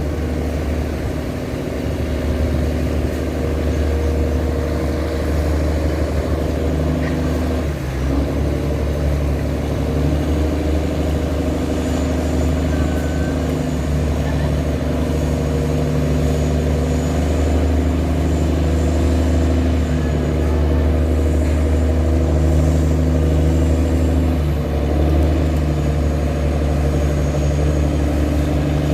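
A tugboat's diesel engine running steadily under load while towing sand barges: a loud, deep, even engine drone with only slight changes in pitch and level.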